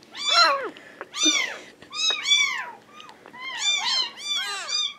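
Several young orphaned kittens meowing over and over, short high cries that rise and fall in pitch, often overlapping one another.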